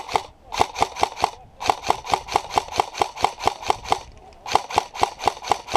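Airsoft gun firing rapid single shots, about five a second, in three strings with short pauses between them.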